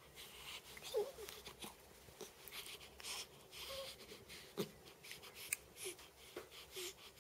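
Newborn baby making faint little grunts and squeaks, about half a dozen short sounds spread through, between soft breaths.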